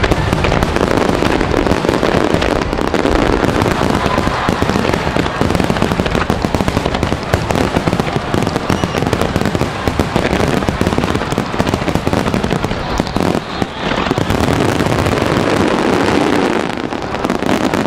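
Fireworks display in a full barrage: a dense, continuous run of bangs and crackling as many shells burst together, dipping briefly about three-quarters of the way through.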